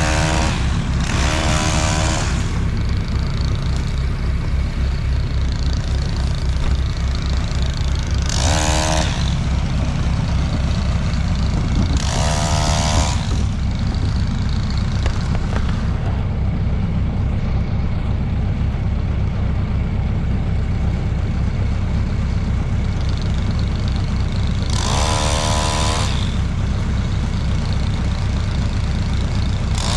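A motor vehicle engine idling steadily, with four short higher-pitched sounds about two, nine, twelve and twenty-five seconds in.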